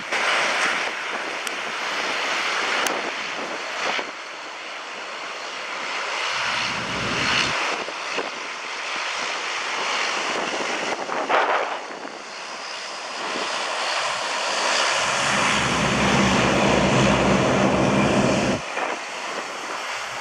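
Embraer E175 airliner's twin General Electric CF34 turbofans on its landing approach, a steady jet hiss and rumble. Strong wind buffets the microphone in low rumbling gusts, once briefly and again for several seconds near the end.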